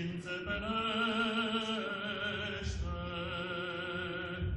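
A man's voice chanting in Orthodox liturgical style, holding long notes with a slight vibrato and moving to a new note about halfway through: a Gospel phrase intoned to its melodic cadence.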